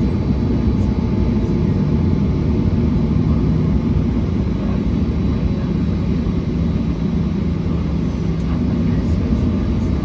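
Airliner cabin noise on the ground: a steady low rumble of the jet engines idling, heard from inside the cabin, with a faint steady high whine above it.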